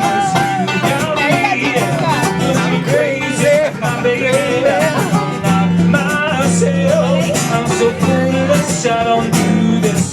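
Live acoustic guitar music, strummed chords with a voice singing over them.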